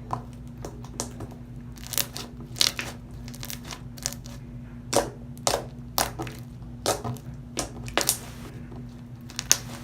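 Freshly activated white-glue slime made with liquid starch being squeezed, stretched and pressed by hand, giving irregular sharp clicks and pops.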